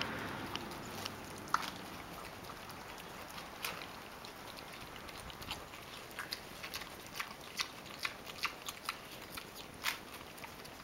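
Pot-bellied pig eating vegetables from a plastic bowl: irregular chewing and biting, heard as a run of short sharp clicks.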